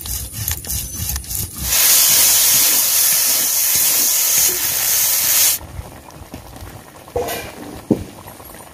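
A few scraping strokes of a grinding stone on a stone slab. Then, about two seconds in, a loud sizzle of elephant apple slices frying in an oiled iron kadai as a spatula stirs them, which cuts off a few seconds later.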